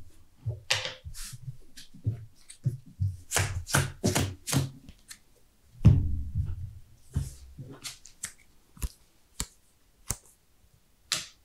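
Trading cards being handled on a playmat: a run of short slaps, slides and rustles, with a heavier, duller knock about six seconds in and a few single sharp taps near the end.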